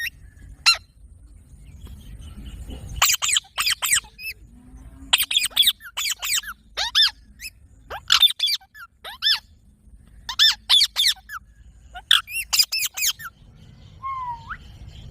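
Rose-ringed parakeet (Indian ringneck) calling: short, shrill screeches that sweep downward in pitch, in quick clusters of two to four, repeated every second or so. A single shorter rising note comes near the end.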